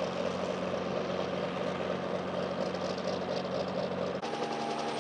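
1955 Hiller helicopter's piston engine idling steadily on the ground with the rotor turning. About four seconds in the sound switches abruptly to a different, steady engine sound with higher pitch lines.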